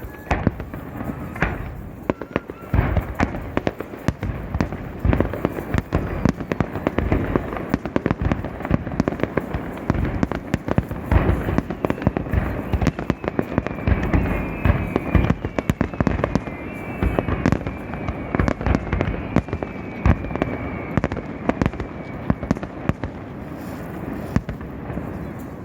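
Fireworks display: a dense barrage of bursting shells and bangs in quick succession. A few falling whistles sound through the middle stretch.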